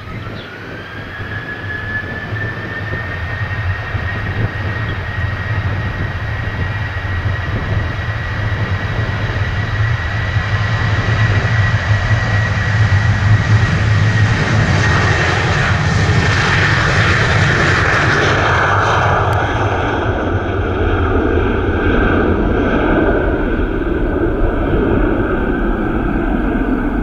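Boeing 737-800's twin CFM56-7B turbofan engines spooling up to takeoff thrust: a fan whine rises in pitch over the first two seconds while the jet noise builds over several seconds into a steady, loud takeoff roll. About 18 seconds in the whine drops in pitch as the jet passes, and a deeper engine rumble carries on as it lifts off.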